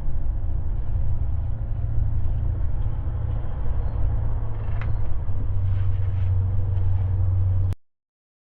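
Truck engine running with a steady low rumble, growing louder about five and a half seconds in, then cutting off suddenly near the end.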